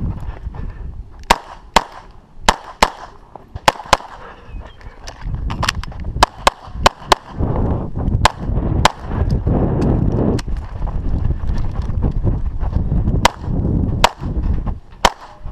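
Pistol shots fired in a rapid, irregular string during a USPSA action-shooting stage, often as quick pairs, with short pauses between groups. A low rumbling noise fills the gaps between shots through the middle.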